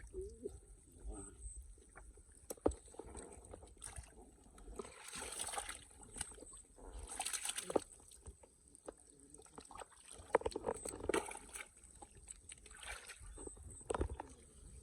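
Shallow water sloshing and splashing in irregular bursts, as from hands or feet working through a flooded field, with scattered small knocks; the biggest splashes come about five and seven seconds in.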